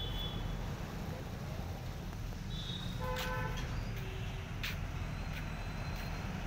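Steady low outdoor rumble, with a short horn toot about three seconds in and a few sharp clicks scattered through the second half.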